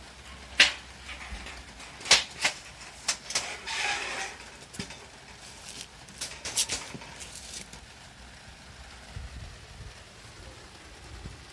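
Metal parts of a folding fire pit clinking and scraping as they are handled and fitted together: several sharp clicks in the first few seconds, a scrape about four seconds in, another cluster of clinks around seven seconds, then quieter.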